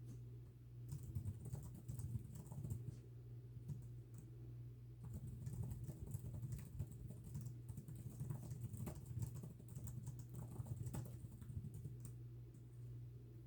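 Typing on a computer keyboard: a quick, irregular run of key clicks over a steady low hum, thinning out near the end.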